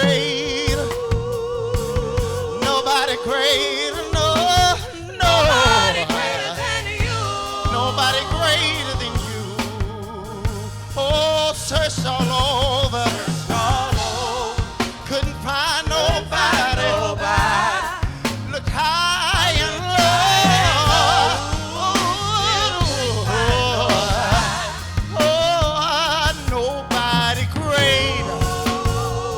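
Gospel music: drawn-out, wavering sung lines with vibrato over a steady bass accompaniment.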